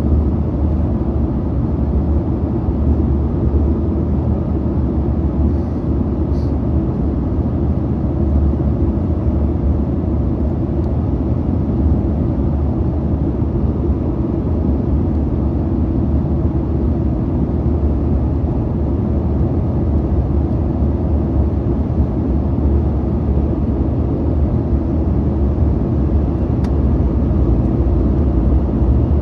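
Steady low cabin rumble of a Boeing 737-900ER in flight, heard from inside the cabin near the front: engine and airflow noise.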